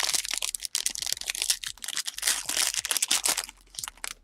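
A trading card pack's wrapper being torn open and crinkled: a dense, crackling rustle that thins out and stops near the end.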